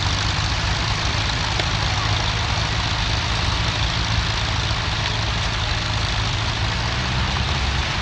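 Vintage tractor engine running steadily as it pulls a plough through the soil, with a steady hiss over it.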